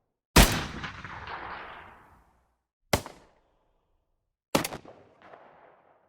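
Three separate gunshots, each sudden and sharp. The first has a long echoing tail that fades over about two seconds, the second is short and dry near the three-second mark, and the third is a quick double crack about four and a half seconds in, followed by a softer echo.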